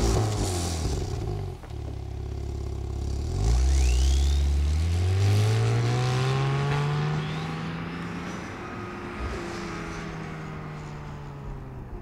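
Porsche 911 Carrera S's 3.0-litre twin-turbo flat-six, breathing through an Akrapovič titanium slip-on exhaust, accelerating away. The exhaust note dips briefly, then climbs steadily in pitch as the revs rise through a gear, and fades as the car drives off into the distance.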